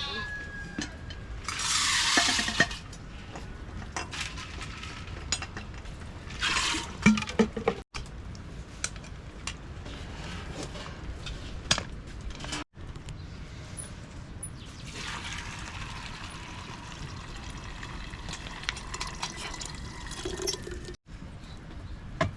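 Water pouring and splashing in short bursts, with scattered clicks and knocks, then a longer steady wash of running water; the sound drops out abruptly three times.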